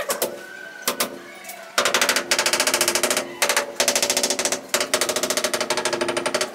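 Handheld tile vibrator pressed on a ceramic wall tile, rattling rapidly in long runs with brief breaks, bedding the tile into its adhesive. A few single knocks come first, about a second before the rattling starts.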